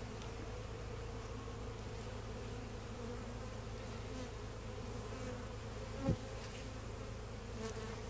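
Honeybee colony humming steadily from an open hive, with a brief louder buzz that drops in pitch about six seconds in.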